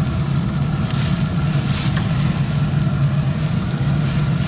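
A steady low motor hum. A brief hiss rises and fades a little under two seconds in.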